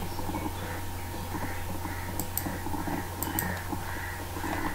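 Two pairs of light computer mouse clicks, each a quick press and release, over a steady low electrical hum and room noise.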